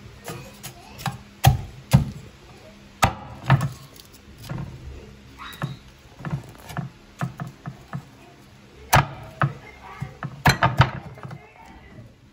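Meat cleaver chopping a roasted whole chicken on a wooden cutting board: a series of irregular sharp chops, the heaviest blows coming early on and again about nine to eleven seconds in.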